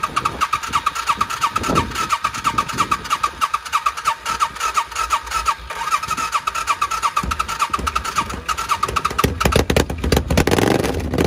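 Air-cooled motorcycle engine running unevenly just after its first start, on a salvage bike listed as not running. It speeds up and gets louder near the end as the throttle is opened.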